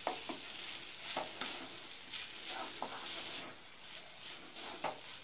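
Wooden spatula stirring coriander rice in a non-stick pan on low heat: a faint steady sizzle with a few soft scrapes and taps of the spatula against the pan.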